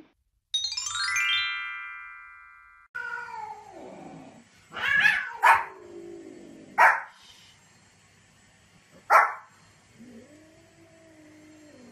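A short rising chime jingle rings out and fades. A small white spitz-type dog then gives a few sharp single barks, a second or two apart, along with a long falling cry around four seconds in and another drawn-out cry near the end.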